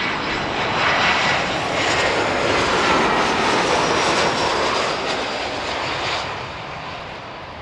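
Jet airliner passing low overhead on its landing approach: engine noise with a steady whine swells within the first second, holds loud, then fades away about six seconds in.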